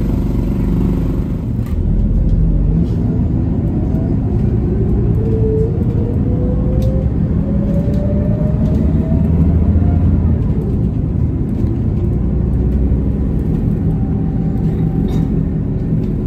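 City bus heard from inside the cabin, pulling away and accelerating: a steady engine and drivetrain rumble, with a whine that rises in pitch for several seconds as the bus gathers speed.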